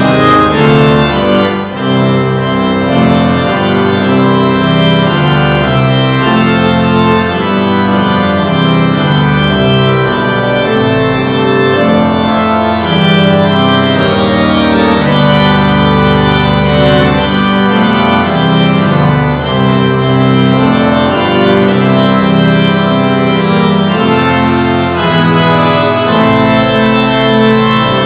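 Organ music playing slow held chords that change every second or so.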